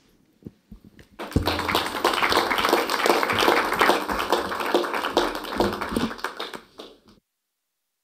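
Audience applauding: many hands clapping at once, starting about a second in and cutting off suddenly about a second before the end.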